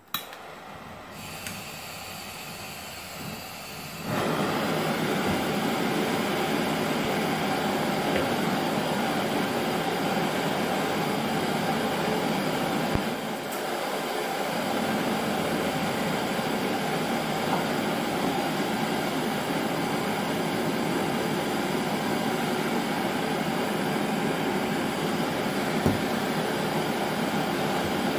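Two gas torches burning with a steady hiss. The first lights with a sharp click at the start, and the sound grows much louder about four seconds in as the second torch is lit.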